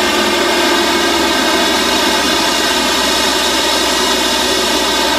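Small plane's engine and propeller running loud and steady, heard from inside the cockpit.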